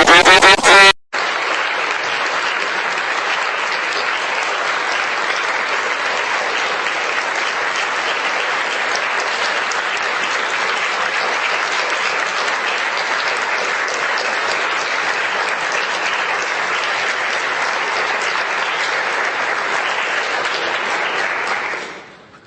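Crowd applause sound effect: a steady, dense clapping that holds for about twenty seconds and fades out near the end. It begins just after a loud pitched sound that cuts off about a second in.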